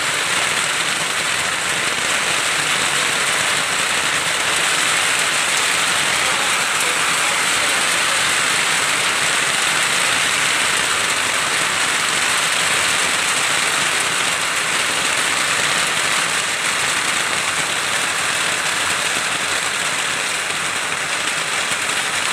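Heavy rain pouring down steadily, an even hiss with no letup.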